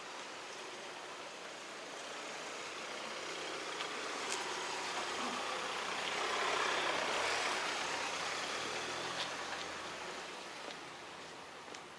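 A motor vehicle passing, its sound swelling to a peak about seven seconds in and then fading away.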